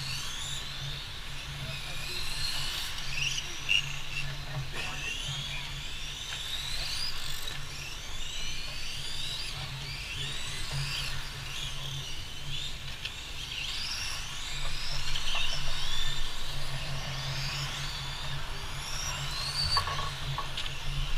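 Several electric radio-controlled Formula 1 model cars racing, their motors whining and overlapping, each whine rising and falling as the cars accelerate and brake through the corners.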